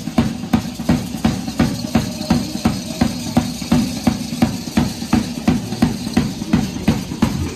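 A drum beating a steady dance rhythm, a little over two beats a second. Each beat is a low boom that falls slightly in pitch.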